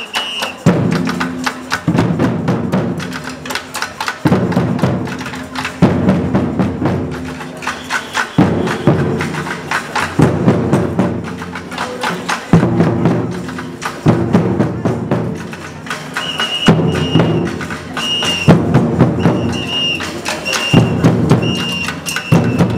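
A street drum group beating metal barrel drums and plastic bucket drums with sticks in a fast, dense rhythm, with heavy low booms every couple of seconds. Short, high, piping tones repeat in quick succession in the last several seconds.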